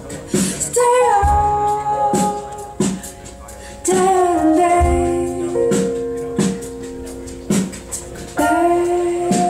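Recorded music played back over Wilson Alexandria XLF hi-fi loudspeakers: a woman sings long held notes that bend in pitch, over low accompaniment with regular soft percussive strokes.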